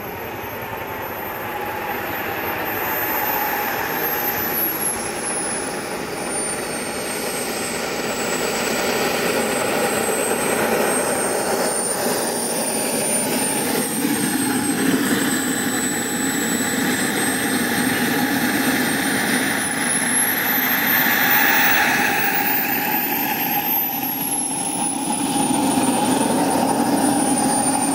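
KingTech K80E model jet turbine of a Fly Eagle Jets Rafale RC jet running on the ground: a steady rush with a high whine. The whine drops in pitch over the first several seconds, then climbs sharply about twenty seconds in and falls back a few seconds later as the turbine spools up and down.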